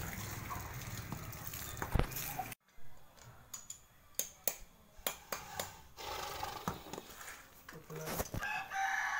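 Water from a garden hose spraying onto a horse, a steady splashing hiss that cuts off abruptly. Then a few sharp clicks and knocks, and near the end a rooster crowing.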